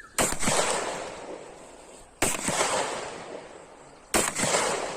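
Three 9mm pistol shots in slow-fire practice, about two seconds apart. Each is a sharp crack followed by a long echoing decay.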